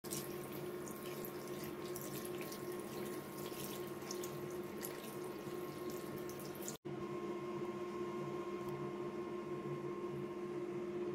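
Water running from a sink tap and splashing onto a soaking cloth towel in the basin, with a steady low hum underneath. A brief cut about two-thirds through, after which the water sound goes on more evenly.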